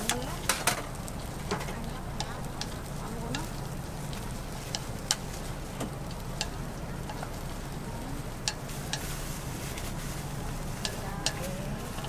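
Batter and filling sizzling in a hot chrysanthemum-bread (gukhwappang) mould plate, with sharp, irregular clicks of a stick tapping and scraping against the mould as the filling is pressed into the cavities.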